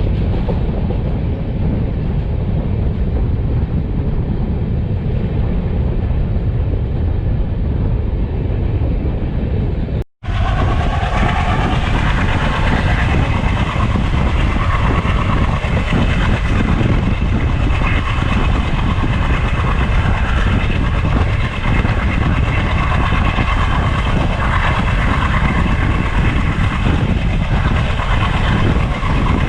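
Train running on track with a heavy, steady low rumble. About ten seconds in the sound breaks off briefly, then comes back brighter, with several steady higher tones over the rumble.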